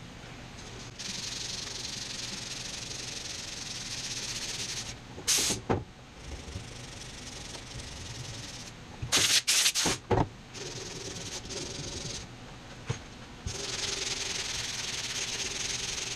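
Body filler being hand-sanded with 80-grit sandpaper: long, steady rasping stretches with short pauses between them, and a few louder short noises about five seconds in and again around nine to ten seconds.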